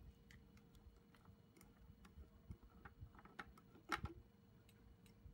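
Faint scattered clicks and light taps of a brush cutter's plastic engine parts being handled by hand, with one sharper click about four seconds in.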